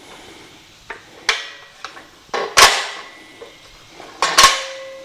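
Metal clanks and knocks from the steel-tube frame of a WEN MSA330 miter saw stand being handled and shifted: about five sharp hits, the loudest in the middle and near the end, a couple leaving a short metallic ring.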